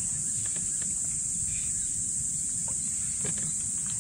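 Steady high-pitched chorus of insects, with a low rumble beneath and a few scattered light knocks.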